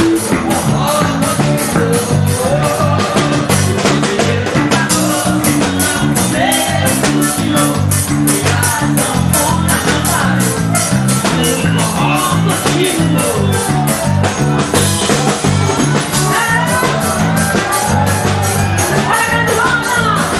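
Forró band music with a fast, steady percussion beat, a stepping bass line and melody over it.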